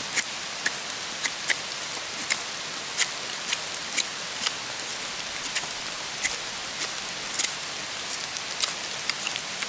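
Solognac Sika 130 Grip fixed-blade knife shaving dry ash wood in short full-hand power cuts, a crisp stroke about twice a second, over the steady hiss of rain.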